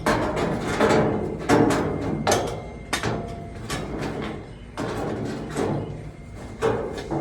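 Irregular clanks and knocks of metal parts and tools being worked during a tractor muffler install, about one or two a second, some ringing briefly.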